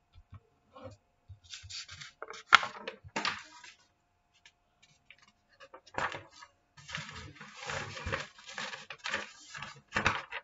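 Sheets of paper being handled: crackling and rustling as a written page is moved off and a blank sheet laid flat, in two spells, the first with a sharp flick of paper about two and a half seconds in, the second longer from about six seconds on.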